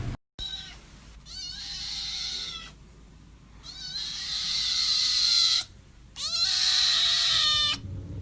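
A cat meowing in three long, drawn-out cries, each rising in pitch at the start and then held.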